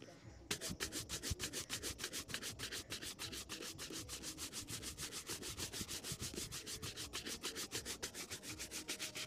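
Stiff bristle shoe brush buffing a polished leather shoe in fast back-and-forth strokes, about six a second. It starts about half a second in and stops abruptly near the end.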